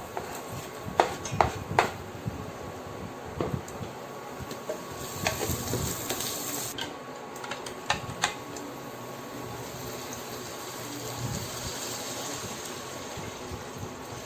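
A wooden spatula knocks against a cutting board and stainless steel pot as chopped onion is scraped into sizzling oil and garlic. A few clicks come near the middle, then a thick curry liquid pours into the pot with a steady splashing hiss.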